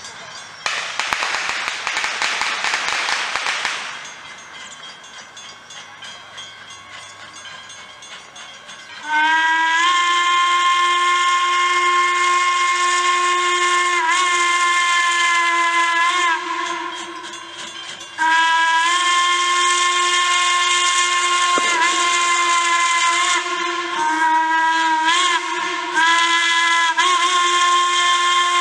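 Steam whistle of a 1907 Baldwin 0-6-0 steam locomotive. It sounds two long blasts, then a short one and a final long one, the grade-crossing signal, each blast swooping up in pitch as it opens. Near the start there is a few seconds of steam hissing.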